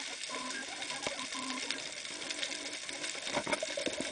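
Underwater noise heard through a camera housing: a dense, steady crackle of clicks with short, repeated low hums and a few knocks near the end.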